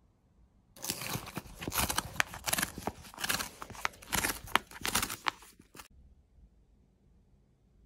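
Perforated rip strip being torn open along a cardboard mailer, a run of ripping and crackling with sharp snaps. It starts about a second in and stops after about five seconds.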